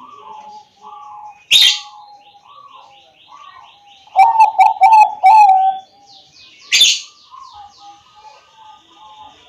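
Bangkok-strain zebra doves (perkutut) cooing: repeated soft rolling coo notes, then a loud run of four coos about four seconds in. Small birds chirp rapidly in the background, and two sharp, loud bursts cut in, about a second and a half in and near seven seconds.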